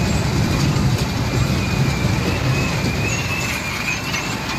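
Kiddie dragon roller-coaster train rumbling steadily along its steel track, with a thin, wavering high tone riding over the rumble.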